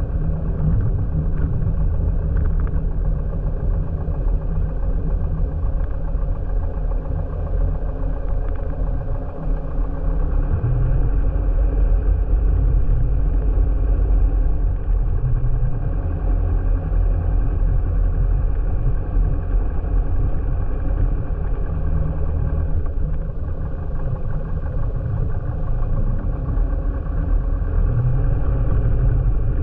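Light aircraft piston engine running steadily, a continuous low drone with no change in pitch.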